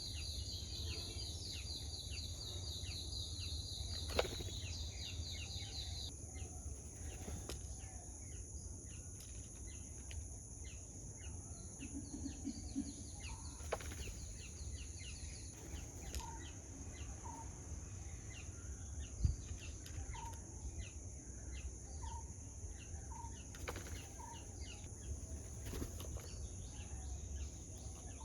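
Outdoor insect ambience: a steady, high-pitched insect drone throughout, with a rapid pulsing insect trill for the first few seconds that returns more faintly later. Under it is a constant low rumble, with a few sharp clicks and a run of short soft chirps in the second half.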